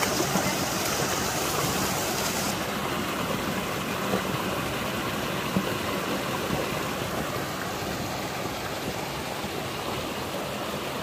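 Stream water flowing steadily, a continuous rushing.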